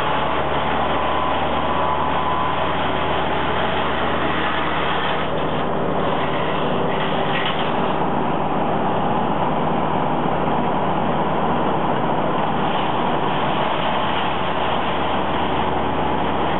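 A 1996 Brush Bandit 90XP disc chipper runs steadily on its 37 HP Wisconsin gas engine, its disc chipping the brush that is fed into the hopper.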